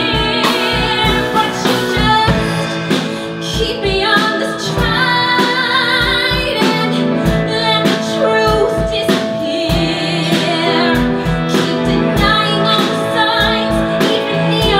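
A woman singing a ballad into a handheld microphone, backed by a live band, holding long notes with vibrato.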